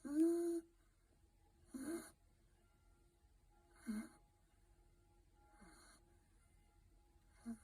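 A sleeping puppy snoring, one breath sound about every two seconds. The first is the loudest, with a whistling tone that rises in pitch; the later ones are fainter and rougher.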